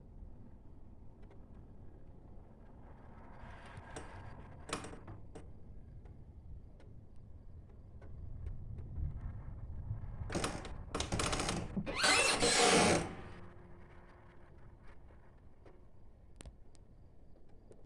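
Thunder rumbling low and swelling over several seconds, with a window being handled: a click, then a few loud scraping, squeaking bursts from the window frame near the middle, the loudest just before the rumble fades.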